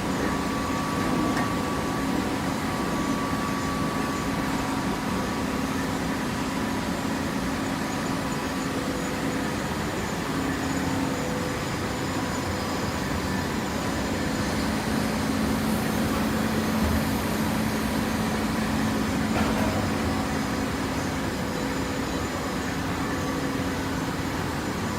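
Hydraulic fiber baler running, a steady machine hum with a few faint steady tones above it.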